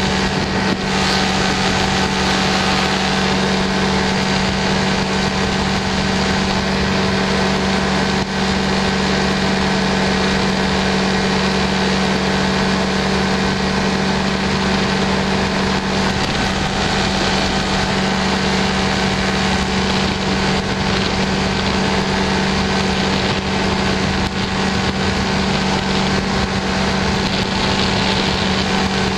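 Light aircraft engine and propeller running steadily in cruise, a constant loud drone with a strong low hum, mixed with wind rushing over the externally mounted microphone.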